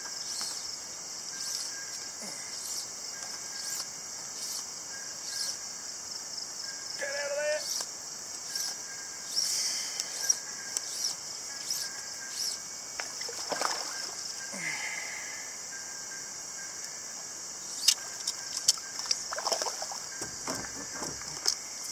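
A small jungle perch splashing and thrashing at the surface while it is played on a fly line, in several short splashes. Behind it runs a steady high drone of jungle insects.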